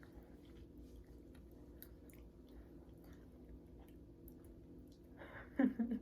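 Faint chewing and mouth clicks of someone eating chicken wings, over a steady low hum. A short, louder vocal sound comes near the end.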